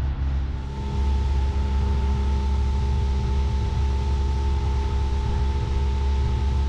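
Honda BF15 four-stroke outboard running steadily at speed, pushing an inflatable boat, with a rush of wind and water over it. A steady whine comes in about a second in, as the sound gets a little louder.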